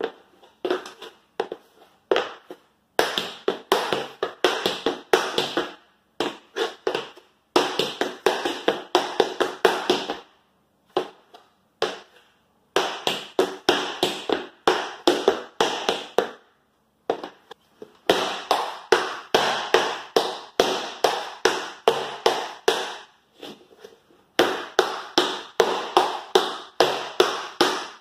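Metal tap plates on tap shoes striking a wooden floor: quick runs of sharp clicks, each a few seconds long, with short pauses between, as basic tap steps such as drawbacks (step back, spank, heel) are danced over and over.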